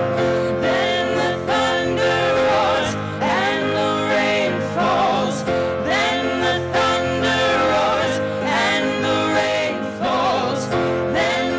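Live song with grand piano and acoustic guitar accompanying singing voices, which hold long, bending notes in phrases of a couple of seconds each.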